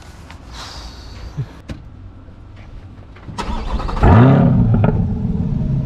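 C8 Corvette Stingray's 6.2 L LT2 V8 starting through an aftermarket stainless-steel cat-back exhaust, about four seconds in. It flares in revs on catching, then settles into a steady, deep idle.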